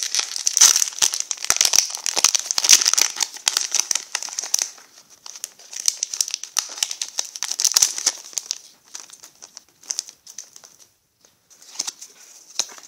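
Foil wrapper of a Pokémon trading card booster pack crinkling as it is torn open by hand. The crackling is dense for about the first five seconds, then thins to sparser rustles.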